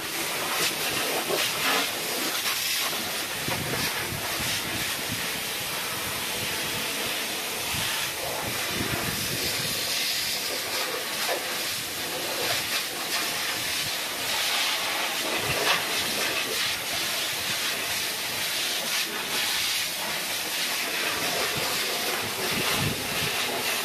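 A fire hose nozzle spraying a steady jet of water onto burnt debris: a continuous hiss with the spatter of water striking the pile, damping down what is left after a fire.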